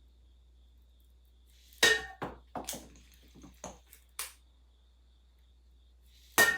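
Tableware clinking and knocking: a sharp clink with a short ring about two seconds in, a few lighter taps, and another sharp clink near the end.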